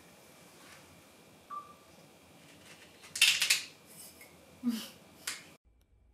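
Dishes and cutlery clinking and clattering on a dining table: a handful of short separate knocks and clinks, the loudest a sharp clatter about three seconds in, cutting off abruptly a little before the end.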